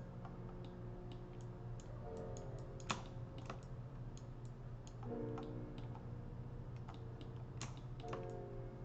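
Scattered computer keyboard and mouse clicks, one sharper click about three seconds in, over soft background music whose sustained chords swell roughly every three seconds.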